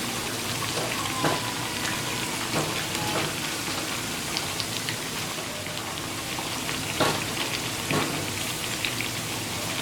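Ragi bondas deep-frying in hot oil, a steady sizzle, with a few light knocks of a ladle against the pan.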